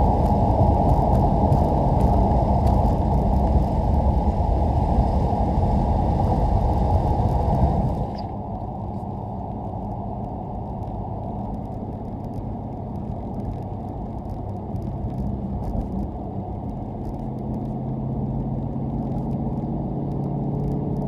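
2019 Dodge Challenger Scat Pack's 392 HEMI V8 running through a mid-muffler delete with Dynomax Mini Bullet mufflers. It is loud and steady until it drops in level about eight seconds in, then settles to a lower drone that slowly builds again over the last few seconds.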